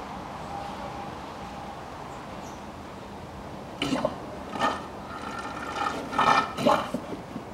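Automatic transmission fluid gurgling as it is poured from a bottle through a nozzle into the fill hole of a ZF 6HP automatic gearbox, with several short glugs in the second half as the bottle empties.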